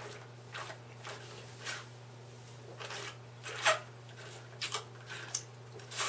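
Drinking from carton drinks through straws: short airy sucking and slurping sounds, one about every half second to second, one louder slurp a little past the middle, over a faint steady low hum.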